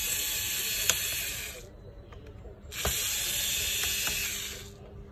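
Small electric screwdriver backing out the laptop's hard-disk screws, whirring with a hissy sound in two runs of about two seconds each, stopping for about a second between them.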